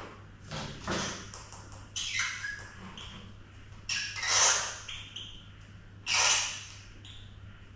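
A cornered mouse squealing in short, harsh cries, four of them about two seconds apart, as a cat paws at it, over a steady low hum.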